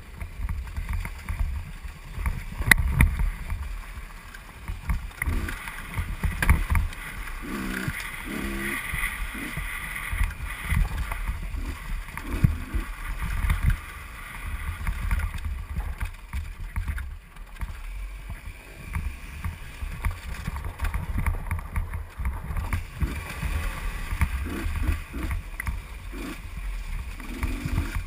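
Husqvarna WRE125 two-stroke enduro motorcycle engine being ridden hard off-road, its revs rising and falling irregularly with the throttle, mixed with wind rumble on a helmet-mounted microphone.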